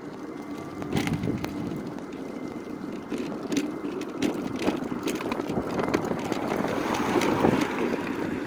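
Electric mobility scooter running along an asphalt road, with tyre noise and irregular rattles and knocks as it rides over bumps. The noise grows near the end as a car passes close alongside.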